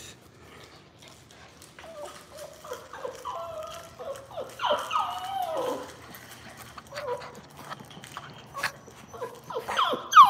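Fox red Labrador puppy whining and whimpering: a run of short, high cries that rise and fall, with scattered light clicks.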